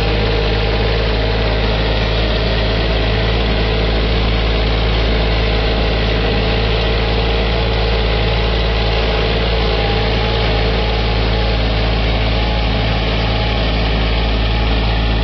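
Small compact tractor's engine running steadily at an even speed as it pulls a rear-mounted row cultivator down the furrows.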